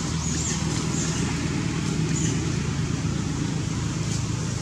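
Steady low motor hum, like a running engine or nearby traffic, with a few faint high chirps in the first second.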